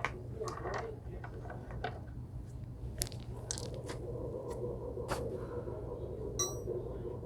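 Hands working on belt sander/grinder parts: scattered clicks, taps and scrapes of metal and plastic being handled and fitted, with a brief metallic ring about six seconds in, over a steady low hum.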